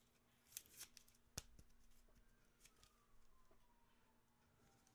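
Near silence, with a few faint clicks and a soft rustle of a trading card in a rigid plastic holder being handled, the sharpest click about a second and a half in.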